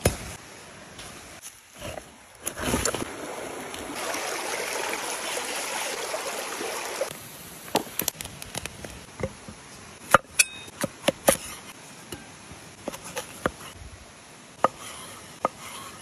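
Running water hissing steadily, then a series of sharp knocks and clicks from wood being handled and cut.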